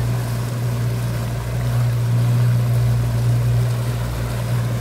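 Outboard motor running steadily at speed, a constant low drone, with the churn of water from the boat's wake beneath it.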